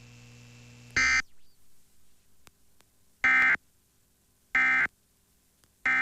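Emergency Alert System end-of-message data tones: three short, identical buzzy digital bursts a little over a second apart, the EOM code that closes the alert. One similar short burst comes about a second in, before them.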